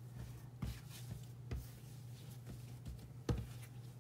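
Pizza dough being kneaded by hand on a floured granite counter: a few soft thumps as the slightly sticky dough is pressed and turned, the loudest about three seconds in, over a faint steady hum.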